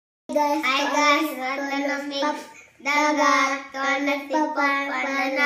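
Young children singing, two sung phrases with held notes and a short break between them.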